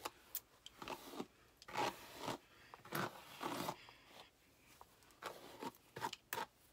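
Hairbrush strokes through a synthetic wig: several short, faint scratchy swishes at an uneven pace.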